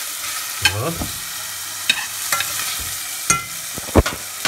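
Pork fillet pieces sizzling as they sear in hot oil in a stainless steel saucepan, with a metal utensil clicking against the pan a few times as the pieces are turned, and a louder knock near the end.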